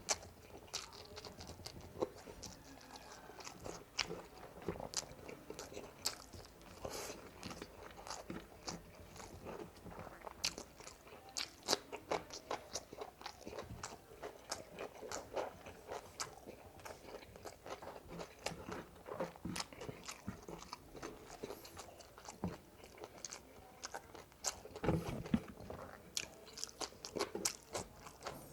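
A person chewing and crunching spicy frog legs close to the microphone: many sharp crisp crunches and wet mouth clicks, busiest a few seconds before the end.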